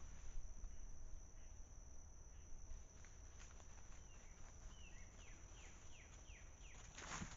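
Faint, steady high-pitched insect chorus from the summer field, with a bird calling a series of about eight short down-slurred notes midway through, and a brief rustle near the end.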